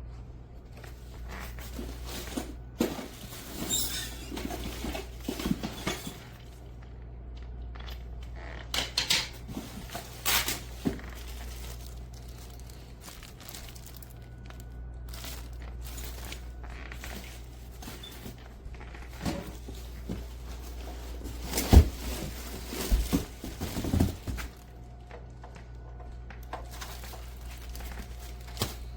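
Irregular handling noises: scattered clunks, knocks and rustling, the loudest a sharp knock a little past the middle, over a steady low hum.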